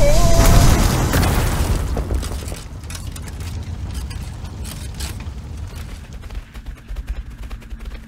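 Crash-and-explosion sound effect for a toy train hitting a toy truck: a loud boom that dies away over about two seconds, cutting off the train's whistle tone. It is followed by a scatter of quieter clicks and crackles.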